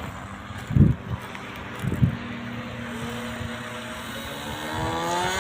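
Model airplane's OS Max .55 two-stroke glow engine running at high throttle, its whine rising in pitch and growing louder over the last couple of seconds. Wind buffets the microphone twice early on.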